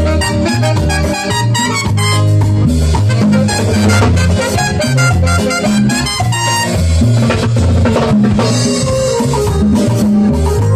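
Live Latin dance band playing an upbeat tropical number: a strong bass line under busy drums and hand percussion, with keyboard.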